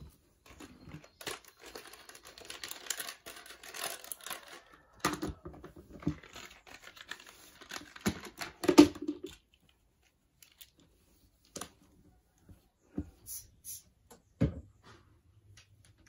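Cloth wiping over a dresser top and plastic toys: a rustling, scraping rub for the first nine or so seconds, with knocks as items are picked up and set down. After that, only a few scattered taps.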